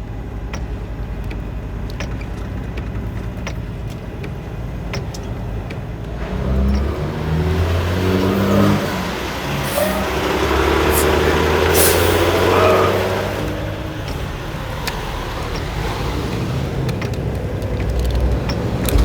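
Semi-truck's diesel engine running on the road with tyre and road rumble. About six seconds in, the engine note grows louder and climbs and falls in steps for several seconds, then settles back to a steady drone.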